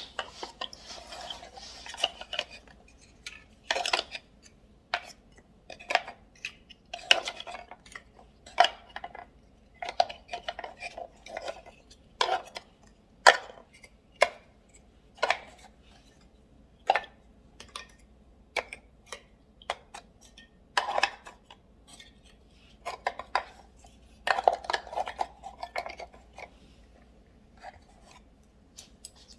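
Small bento-lunchbox accessories clicking, knocking and rattling as they are set into the compartments of a bamboo drawer organizer, in irregular separate clacks with short stretches of rummaging rattle.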